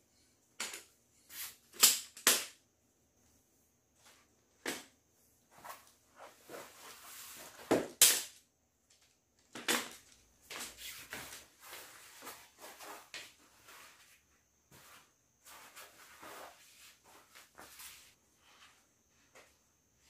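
Aluminium poles of a folding camping chair clicking and knocking together as the frame is assembled, with a few sharp snaps as pole ends seat into the plastic hubs, and rustling of the fabric seat being handled.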